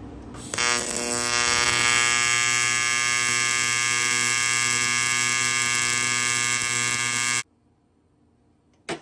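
AC TIG welder buzzing steadily while welding aluminum, starting suddenly about half a second in and cutting off abruptly after about seven seconds. A short knock follows near the end.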